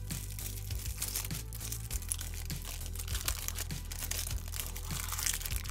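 Thin paper wrapping crinkling as it is unfolded by hand from a small stack of microscope glass, over background music with steady low notes.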